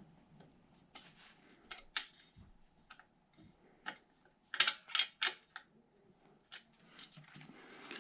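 Light, irregular metal clicks and taps from hand tools and parts as a bicycle's stem and headset bolts are worked loose with an Allen key, with a quick run of louder clicks near the middle.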